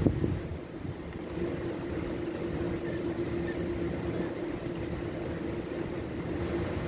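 Car engine idling steadily, with a steady hum that comes in about a second and a half in.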